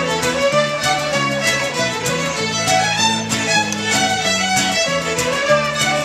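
Fiddle ensemble of about eight violins playing a folk tune together, with an acoustic guitar underneath.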